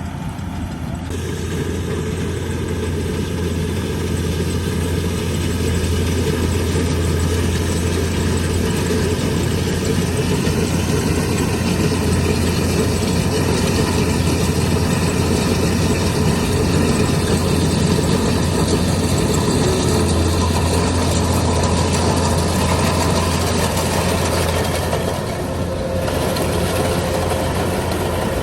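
Engine of a rice-harvesting machine running steadily. It gets louder about a second in and eases briefly near the end.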